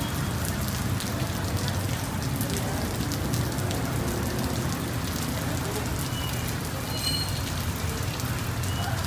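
Steady downpour of rain on a street, an even hiss with many individual drops ticking close by, over a low rumble of passing traffic.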